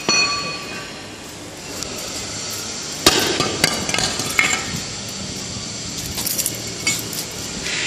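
Cast iron manhole step clanking: a ringing metallic clang dies away at the start, then sharp metal knocks and clinks come in two clusters, about three seconds in and again about six seconds in.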